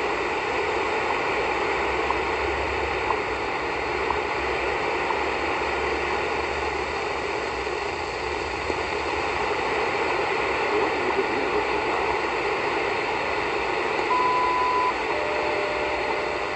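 WWV time signal on 15 MHz through a Tecsun GR-168 portable radio's speaker: steady shortwave hiss and static with faint ticks about once a second. About fourteen seconds in, a high beep lasting under a second marks the minute. A lower steady tone follows near the end.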